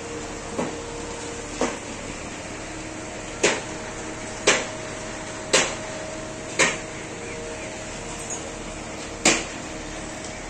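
Sharp metal-on-metal strikes on steel rebar, about seven in all, irregularly spaced roughly a second apart, each with a brief ring, over a steady background hum.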